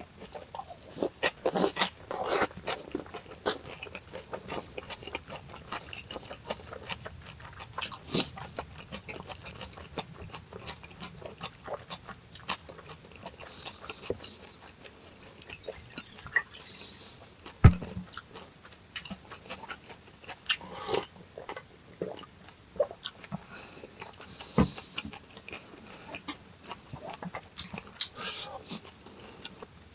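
Close-miked chewing and biting of food: irregular wet crunches and mouth clicks from eating hongeo samhap, a burst of them in the first few seconds and single sharp crunches scattered through.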